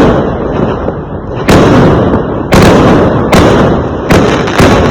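Fireworks going off: a string of loud bangs about a second apart, each trailing off in a rumble.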